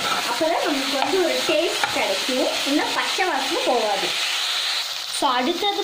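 Chopped onions frying in oil in a metal kadai, sizzling steadily as a metal spoon stirs and scrapes them against the pan, each stroke giving a short squealing scrape. The stirring stops briefly about four seconds in, then starts again.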